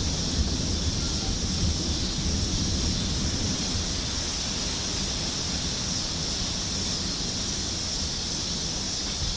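Storm wind blowing steadily, buffeting the microphone, over a steady hiss, with the low rumble of a thunder roll dying away over the first few seconds.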